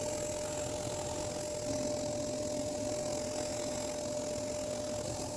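Laser cutter running as it cuts a design into a wooden sheet: a steady machine hum and hiss with one constant mid-pitched tone.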